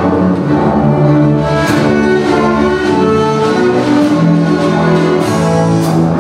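A massed ensemble of about 39 double basses bowing held, melodic notes, with a few sharp percussion hits cutting through.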